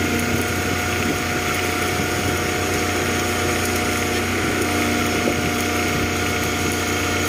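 Engine of heavy construction machinery running steadily, a constant drone with several fixed tones and no change in speed.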